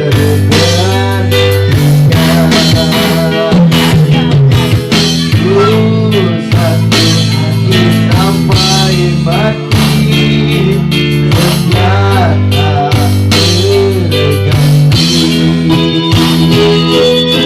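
Instrumental band music: a gliding lead melody over steady bass notes and drums, with no singing.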